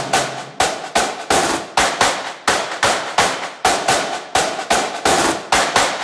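Background music in a percussion-only break: a steady run of sharp, clap-like hits, about two to three a second, with the bass dropped out.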